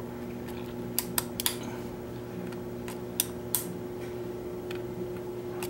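Scattered small metallic clicks, about seven, from a Lishi HU100 pick being worked in a GM (Chevrolet) car door lock cylinder as its wafers are felt and set one by one, over a steady background hum.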